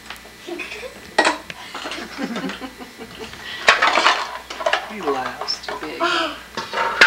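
Plastic bowls and containers clattering and knocking in a wooden kitchen drawer as a toddler rummages through them, with a few sharp knocks, mixed with the toddler's babbling.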